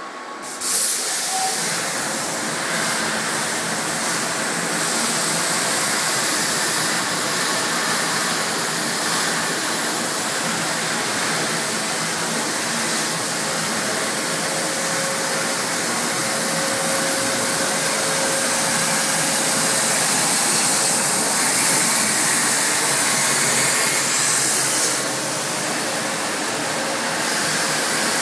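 Plasma cutting torch on a Techserv Blue Marlin CNC plasma table: the arc strikes with a sudden burst just under a second in, then a steady, loud hiss as it cuts through metal plate, easing a little near the end.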